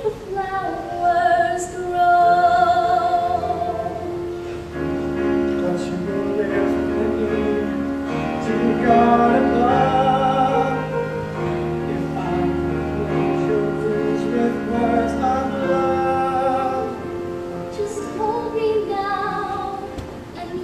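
A live stage-musical duet: a woman singing with vibrato and a man singing with her, over sustained accompaniment.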